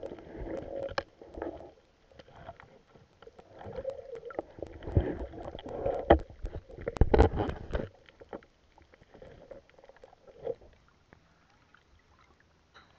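Water sloshing and splashing around a camera moving through the water, in irregular gushes with many small clicks and knocks. It is loudest in the middle and dies down to a few small splashes over the last few seconds.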